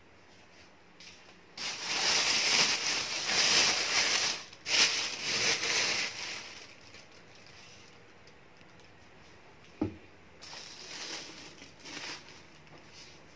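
Thin plastic produce bags rustling and crinkling as vegetables are handled. There is a loud spell for the first several seconds, a single sharp knock, then a softer spell of rustling.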